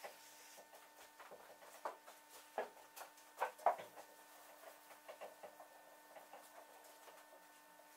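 Faint rubbing of a cloth wipe over a painted car door panel while it is degreased with a water-alcohol cleaner, with a few louder rubs and knocks in the middle. A steady faint hum runs underneath.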